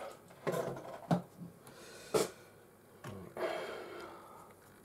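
A few small knocks and a sharp click of objects being handled on a workbench, then a short scraping swish that fades out.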